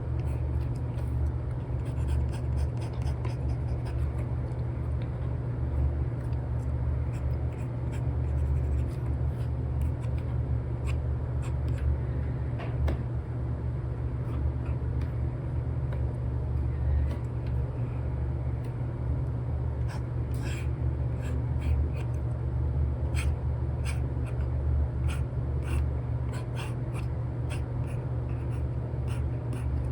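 Stylus scratching and tapping on a paper-like screen protector, an Apple Pencil 2 with an Elecom nib drawing on an iPad, in many short strokes that come thickest in the second half. Under it runs a steady low rumble of background white noise.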